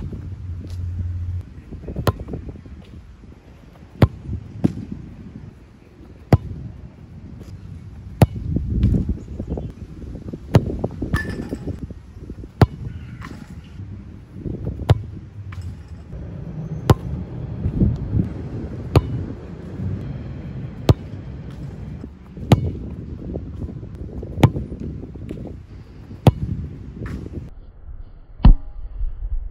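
Soccer ball kicked hard over and over, a sharp thump about every two seconds, with an uneven low rumble between the kicks.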